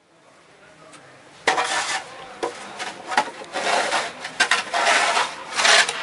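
Rough, rasping noise of snow in a blizzard, fading in and then coming in loud, uneven bursts from about a second and a half in.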